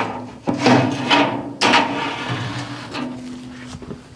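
Steel expanded-metal cooking racks in a smoker's cooking chamber being slid out on their rails, with several metal-on-metal clanks and scrapes in the first half and a low metallic ring after some of them.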